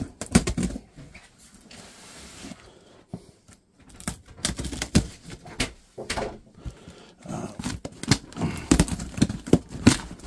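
A taped cardboard parcel being handled and turned over on a carpeted floor: a run of knocks, taps and scuffs against the box, busiest in the last few seconds.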